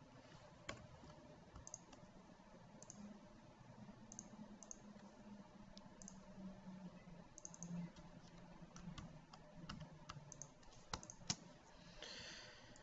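Faint, scattered clicks of a computer mouse and keyboard, irregularly spaced, with two louder clicks near the end, then a brief soft hiss.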